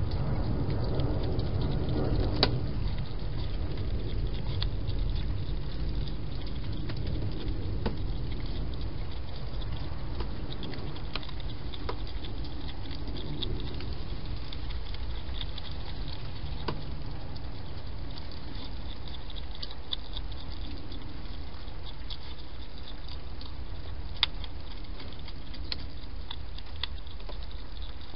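A wild hedgehog eating from a food dish, heard as scattered small chewing clicks over a steady low background noise.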